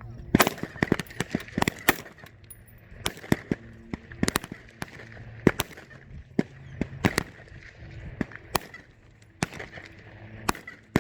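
Rifle fire on a firing range from M4 carbines during Army rifle qualification: many single shots at an irregular pace, some close and loud, others fainter from neighbouring lanes.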